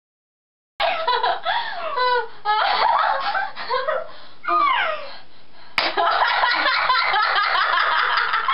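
Two girls laughing uncontrollably in a fit of giggles. The laughter breaks in about a second in and goes on in rising and falling peals.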